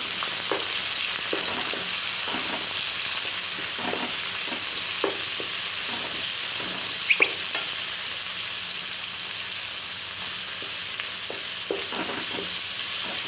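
Sliced onions sizzling in hot oil in a kadai, with a spatula scraping through them now and then as they are stirred. A quick double clink about halfway through.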